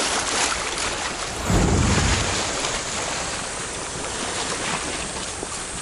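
Sea surf washing along the shore with wind buffeting the microphone, and one stronger low gust of buffeting about a second and a half in.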